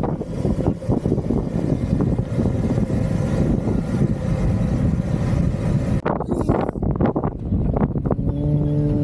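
Off-road vehicle engine running under rough, noisy driving, with wind buffeting the microphone. About six seconds in the sound changes abruptly, and near the end it settles into a steady even engine hum.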